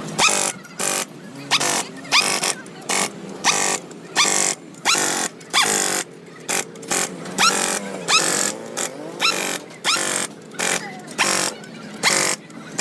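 Rhythmic scraping strokes, about two a second, each rising in pitch, like a tool being worked back and forth over metal.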